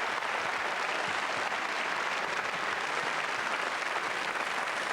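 Large audience applauding steadily, a dense even clatter of many hands.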